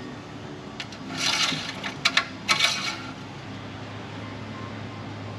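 Engine oil dipstick being drawn out of its tube and handled for an oil-level check: two short scraping rubs, about a second and two and a half seconds in, with a couple of light clicks between them.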